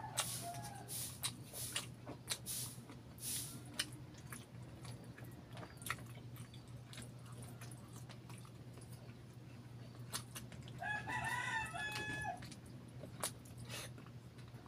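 Close-up wet chewing and lip-smacking of saucy chicken barbecue eaten by hand, in many short clicks. A rooster crows in the background about eleven seconds in, with a fainter call near the start.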